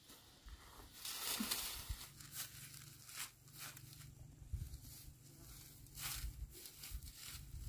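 Irregular rustling and crunching, loudest about a second in, with scattered light clicks and a faint low hum underneath.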